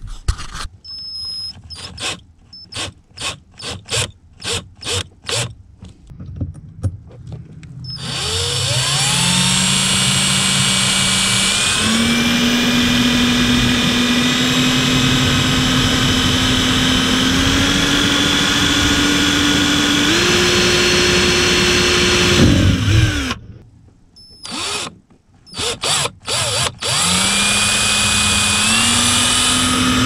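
19.2-volt cordless right-angle drill boring a 1/16-inch pilot hole in a car's brake pedal. It starts with a quick series of short pulses, then runs steadily for about fifteen seconds, its whine stepping up in pitch as it speeds up. It then stops, gives a few more short pulses, and winds up again near the end.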